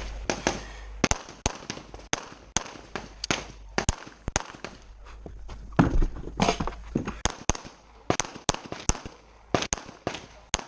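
Rapid handgun shots from a competitor running a practical-shooting stage: about two dozen sharp reports, many fired in quick pairs. There is a pause of about a second and a half a little before the middle, then the firing resumes.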